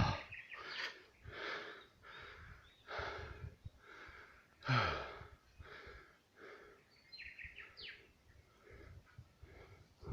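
A person breathing in quick, rhythmic breathy puffs, about one every three-quarters of a second, with a short voiced sigh falling in pitch about five seconds in.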